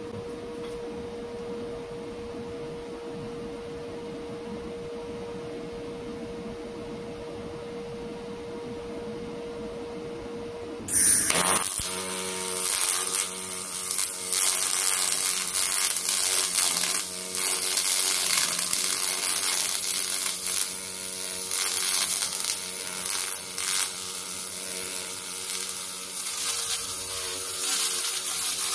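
A steady hum, then about eleven seconds in a double-pulse MIG welding arc from a Decapower Ultramig-230 Expert strikes and runs as a loud crackling buzz with a steady low tone under it, its level rising and dipping.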